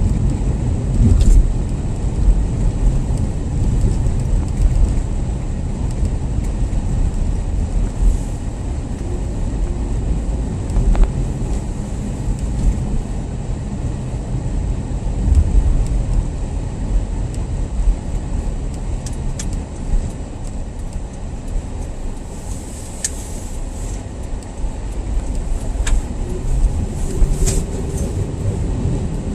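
Car driving: a steady low rumble of engine and road noise, with a few sharp ticks in the last few seconds.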